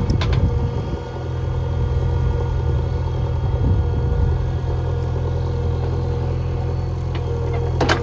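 JCB backhoe loader's diesel engine running steadily under load as the rear backhoe arm digs and lifts a bucket of sandy earth, with a steady high whine over the engine and a few sharp clicks near the end.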